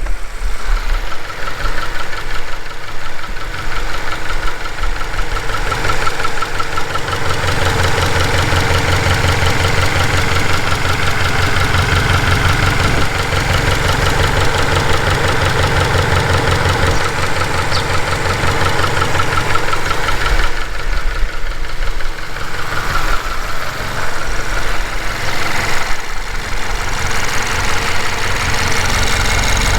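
Subaru Levorg's CB18 1.8-litre turbocharged flat-four idling, with a fast, even clicking and tapping ("kachi-kachi", "ton-ton") from the left side of the engine. The owner finds it about three times louder than on another car of the same model; the dealer calls it normal variation between engines, not a fault.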